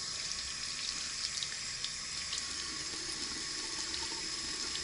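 Water running steadily from a sink tap, with small splashes.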